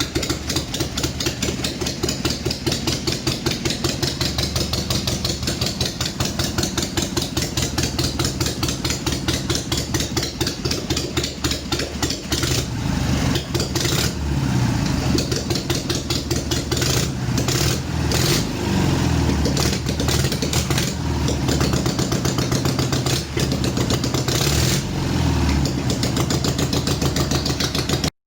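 Ural motorcycle's flat-twin engine, warm, running at idle with a fast, even beat. In the second half the throttle is blipped several times in short surges, and the sound cuts off suddenly near the end.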